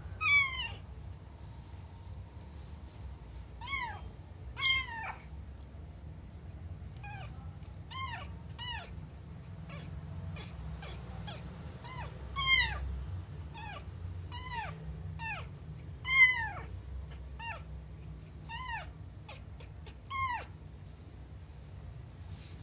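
Small black kitten meowing over and over: short, high-pitched calls that slide down in pitch, about one every second or so, a few of them louder than the rest.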